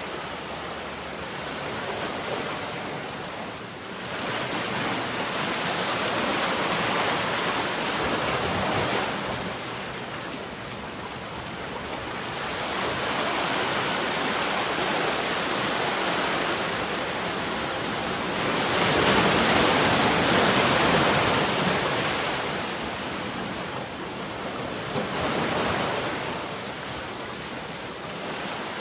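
Sea waves breaking and washing on a shore, a steady rushing noise that swells and falls back every few seconds, with the biggest surge a little past the middle.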